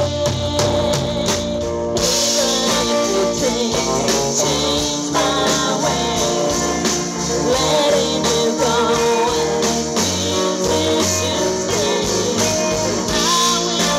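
A live band playing a song: a woman singing over electric guitar, bass guitar and drum kit, with the cymbals coming in about two seconds in.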